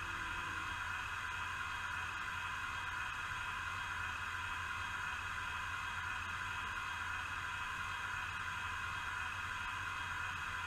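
Steady hiss with a low hum beneath it. The hiss holds level throughout, with no rhythm or separate events.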